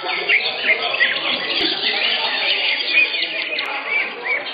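Caged greater green leafbirds (cucak hijau) singing together: a dense chorus of many overlapping fast chirps and short whistled glides.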